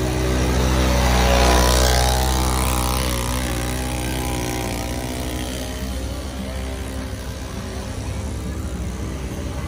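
A motor vehicle's engine running, swelling to its loudest about a second and a half in and then easing off.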